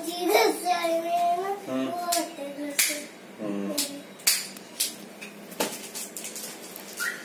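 A young girl talking in a sing-song voice for the first few seconds, followed by a few sharp taps and clicks of hands handling things on a desk.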